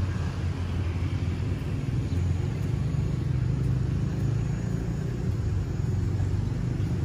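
Road traffic: a steady low rumble of car engines and tyres.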